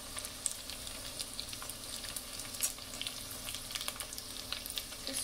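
Panko-breaded onion rings deep-frying in a pot of hot oil: a steady sizzle dotted with small crackles.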